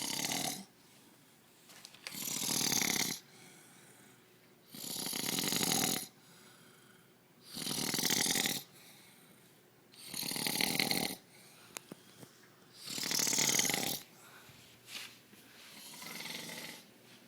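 A man snoring in a steady rhythm, one snore about every two and a half to three seconds, each lasting about a second; the last two snores are softer.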